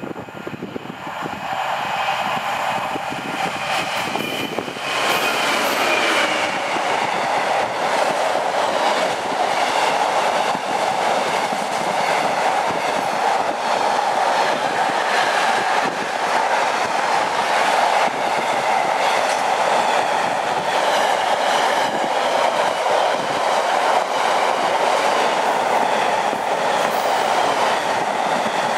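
A Class 66 diesel-hauled intermodal freight train passes close by. The sound builds over the first few seconds as the locomotive arrives, then the container flat wagons run past in a steady, loud rumble and clickety-clack of wheels over the rail joints.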